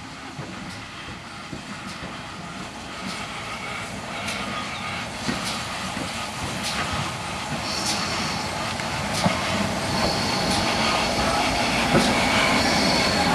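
GWR 4575 Class 2-6-2T steam tank locomotive approaching at low speed and passing close by, growing steadily louder, with sharp knocks about once a second. High-pitched squeals join in from about eight seconds in.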